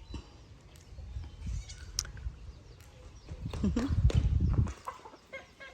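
Farm animals bleating, loudest about three and a half to four and a half seconds in, over a low rumble.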